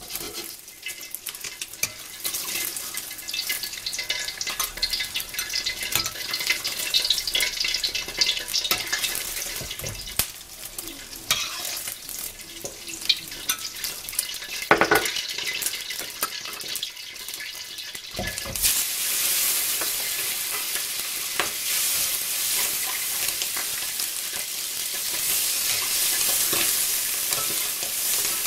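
Stir-frying in a wok: a spatula scrapes and clicks against the pan over a light sizzle of eggs in oil. About eighteen seconds in, a louder, steady sizzle starts as tomato pieces go into the hot oil and keep frying.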